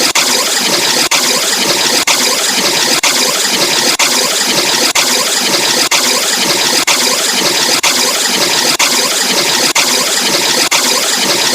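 Harsh, heavily vocoded and distorted 'evil' sound effect: a dense, grating noise repeating in a loop, cutting out for a split second about once a second.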